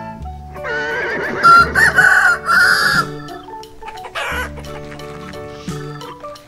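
A rooster crowing, one long wavering cock-a-doodle-doo from about half a second to three seconds in, a recorded sound effect laid over a light background music tune.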